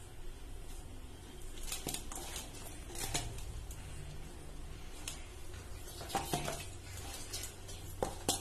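Irregular light clinks and rustles of a plastic container knocking on a stainless steel mixing bowl as gram flour is shaken out over sliced onions, then hands stirring the flour through the onions.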